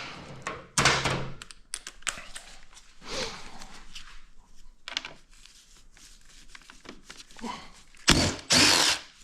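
Cordless power driver run in short bursts, backing out the screws that hold the motorcycle's fuel tank, with tool and handling noises between; the two loudest bursts come near the end.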